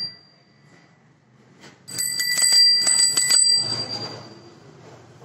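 Bicycle bell ringing. A ring fades out in the first second, then about two seconds in comes a quick run of several rings that dies away.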